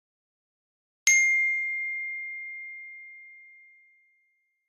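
A single bright bell-like ding about a second in, ringing on one clear tone and fading out over about three seconds.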